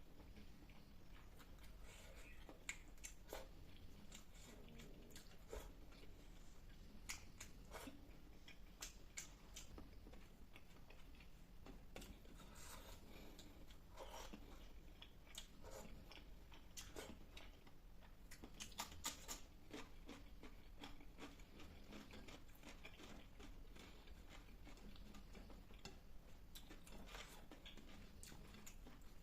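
Faint, close-up chewing and mouth sounds of a person eating fish curry with rice and salad, with many short scattered clicks and snaps and a few louder ones.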